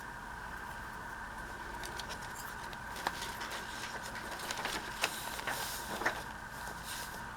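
Paper rustling and small clicks and taps from handling paper pieces and embellishments, busiest in the second half, over a faint steady high hum.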